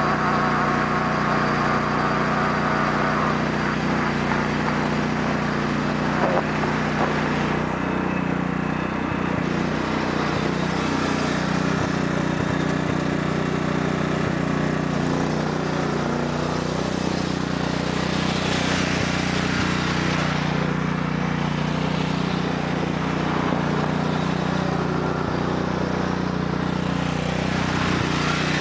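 Sears Craftsman lawn tractor's 14 hp Kohler OHV engine running steadily as the tractor drives about.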